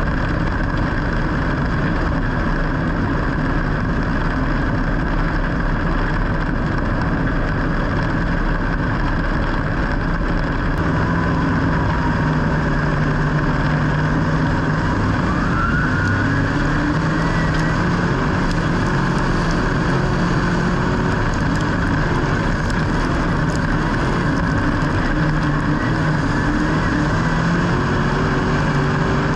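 Steady motor-vehicle noise: engine and running noise throughout, with the engine tones slowly rising in pitch through the middle.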